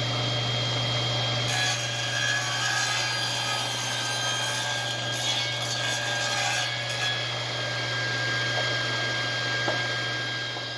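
Table saw running with a steady motor hum and whine. From about a second and a half in until about seven seconds in, the blade cuts a wooden table-leg blank on the diagonal as it is fed past on a homemade taper jig, adding a rasping cutting noise over the motor.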